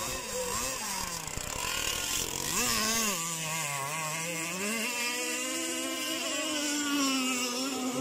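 Radio-controlled powerboat's motor running at speed on open water, its pitch rising and falling smoothly as the throttle and the boat's hull load change. There is low wind rumble on the microphone during the first few seconds.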